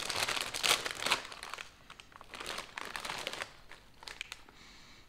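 Plastic chip bag crinkling as it is handled, dense for the first second and a half, then a few lighter rustles that die away.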